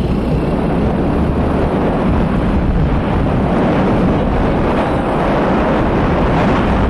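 Wind buffeting the microphone over the steady road and engine noise of a moving vehicle.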